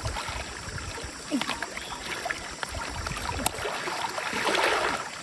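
Stream water rushing and splashing, with scattered low knocks and a few sharp clicks; the water noise swells about four seconds in.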